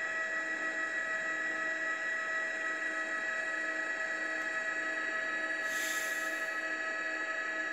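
Steady helicopter cabin noise: a turbine whine of several fixed tones over a constant hiss, with a low hum that pulses about once a second. A short burst of hiss about six seconds in.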